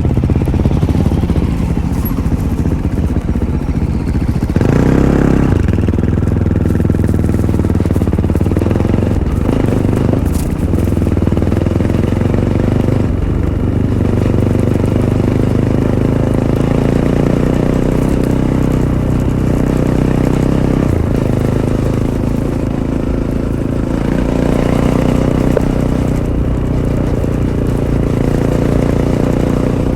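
Fantic Caballero 500's single-cylinder four-stroke engine through its stock Arrow exhaust, heard from on the bike, revs rising and falling over and over as the throttle is opened and closed, with a hard burst of throttle about five seconds in.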